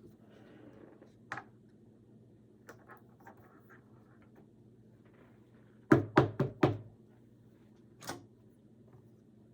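Four quick, sharp knocks on a hard surface, then a single knock about two seconds later, with faint handling rustles before them.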